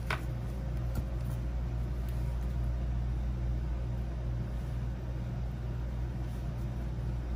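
Pen and plastic ruler on a planner page: a short scrape just after the start as the ruler is set down, then a few faint clicks and scratches as a pen is drawn along it. A steady low background hum runs underneath.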